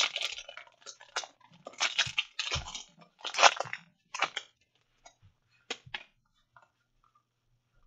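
Foil wrapper of a Pokémon card booster pack crinkling and crackling in bursts as it is torn open, then a few light clicks and rustles as the cards are slid out.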